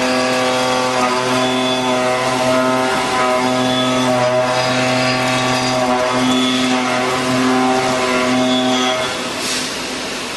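Hurco VTXZ CNC machine running: a steady pitched machine hum with several overtones that drops out briefly and comes back every second or two, weakening near the end.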